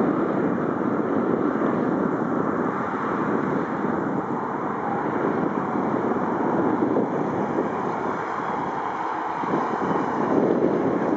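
Boeing 767-300ER's jet engines giving a steady rushing noise as the airliner lands, mixed with wind on the microphone.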